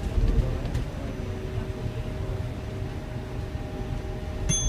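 Cabin noise inside a BYD/Alexander Dennis Enviro400EV battery-electric double-decker bus on the move: a steady low rumble with faint, steady humming tones over it. A brief high tone sounds near the end.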